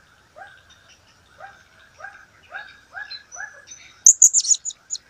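Blue-crowned hanging parrot (serindit) calling. A lower chirp repeats about twice a second, then a quick burst of about six shrill, high-pitched chirps about four seconds in is the loudest part.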